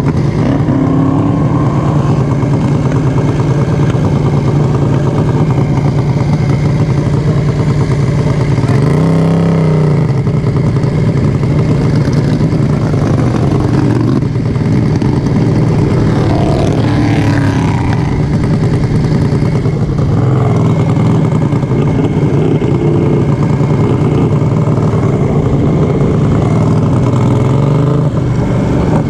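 Racing lawnmower engine at full throttle, heard onboard, running loud and steady with its pitch dipping and climbing back briefly about nine seconds in.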